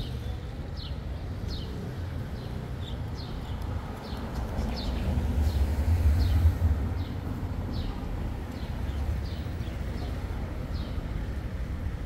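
A small bird repeating short, high, falling chirps, roughly one or two a second, over a low engine rumble that swells and is loudest about halfway through.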